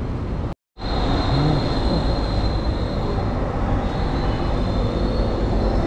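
Steady traffic noise of a busy city street, cars and a lorry passing, with a thin high whine over the rumble. The sound cuts out briefly just over half a second in.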